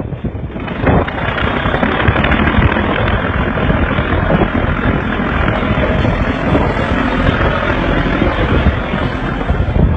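Loud steady rushing and rumbling of a boat under way at sea, its engine and the wind buffeting the microphone, starting up about a second in.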